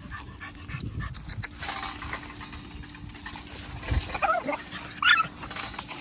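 A two-to-three-month-old American pit bull terrier puppy gives two short, high whining yips near the end, the second louder, over scuffling and rustling as she plays and tugs.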